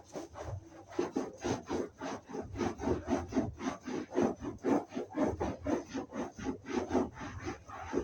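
Sofa upholstery being wiped hard with quick back-and-forth strokes, a scratchy rubbing at about four strokes a second that starts about a second in.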